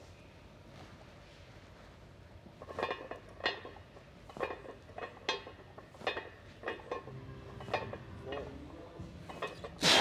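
Loaded barbell and iron weight plates clinking and knocking, about a dozen irregular metallic strikes with short ringing, starting a few seconds in. A loud, sharp breath comes right at the end.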